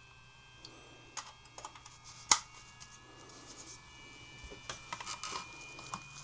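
Light clicks and taps of small parts being handled, with one sharp click about two seconds in, over a faint steady hum.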